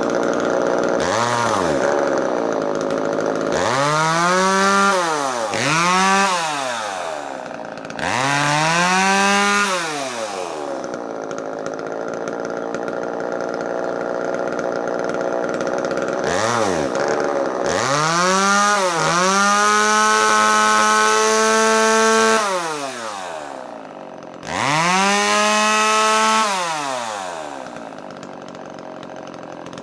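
Echo CS-3000 chainsaw's two-stroke engine being throttled up and down about seven times, some quick blips and some held at high revs for two or three seconds, dropping back to idle between. It is being run to test the freshly adjusted carburetor.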